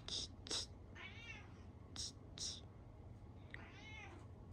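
Kitten meowing twice, with short scratchy rips of adhesive tape being peeled off its backing between the meows.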